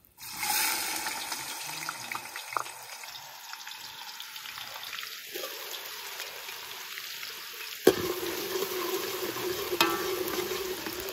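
Chopped onions dropped into hot oil with whole spices in a large pot over a wood fire. They sizzle loudly at once, then keep frying steadily. A sharp knock comes about eight seconds in, and another near the end.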